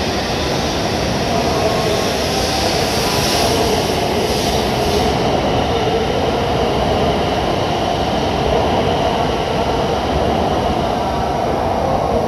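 E7 series Shinkansen train accelerating away from the platform, its cars rushing past with a loud, steady rush of wheel and car-body noise until the last car clears near the end.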